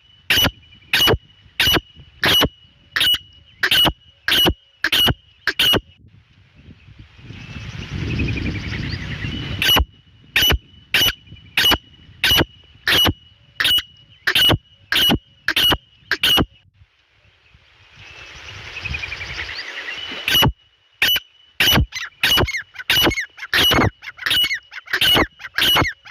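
Grey francolin (dakhni teetar) calling: loud, shrill notes repeated about twice a second in three long series. Between the series are a few seconds of rising rushing noise.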